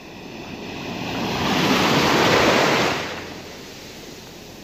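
Sea water washing with a steady rush, and one wave's wash swelling about a second in and dying away about three seconds in.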